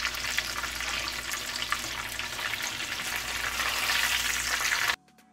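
Oil sizzling with many small crackling pops as a breaded chicken breast shallow-fries in a frying pan. The frying sound cuts off suddenly near the end, giving way to soft background music.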